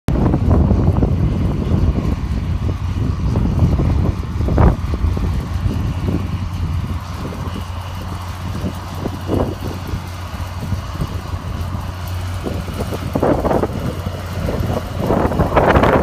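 John Deere 7700 tractor's six-cylinder diesel engine running steadily under load while pulling a seven-furrow reversible plough through the soil. It grows louder near the end as the tractor comes closer.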